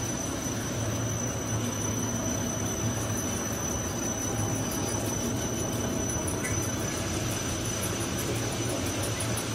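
Five-block straight-line wire drawing machine (LZ5/560) running while drawing high-carbon steel wire: a steady mechanical drone with a low hum and a thin, steady high whine.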